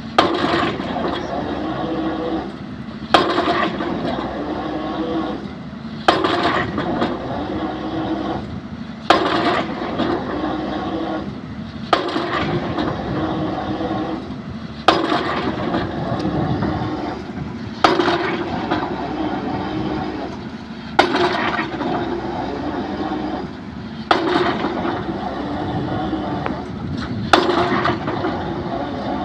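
Excavator drop hammer striking a concrete pile about every three seconds, a sharp ringing impact at each blow, ten blows in all. The excavator's engine runs steadily between the blows.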